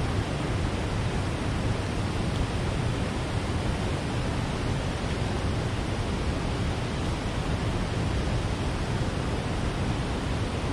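Steady rush of water pouring through a river dam's gates, an even noise with no breaks.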